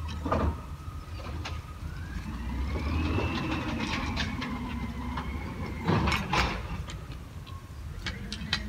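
Peterbilt 320 garbage truck's engine revving up and slowly settling back, a whine rising and falling with it over the steady rumble. There are two loud bangs about six seconds in.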